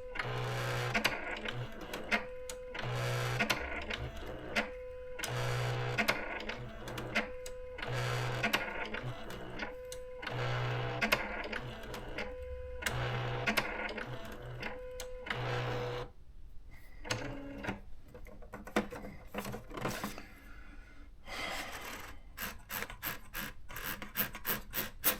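Thermal typewriter working its correction: the carriage motor and print head hum in a repeating cycle every second and a half to two seconds as the correction tape lifts off the typed characters one at a time. Near the end comes a quickening run of rapid ticks from the mechanism.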